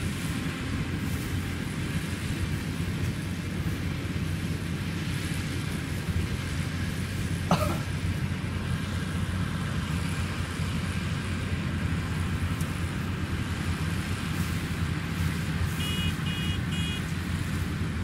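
Yanmar YH850 combine harvester running steadily under load while cutting rice, its diesel engine and threshing gear making a low, even drone. A single sharp click cuts through about seven and a half seconds in.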